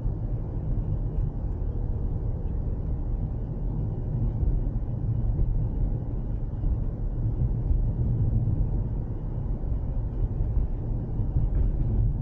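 Car driving along a road: a steady low rumble of tyres and engine.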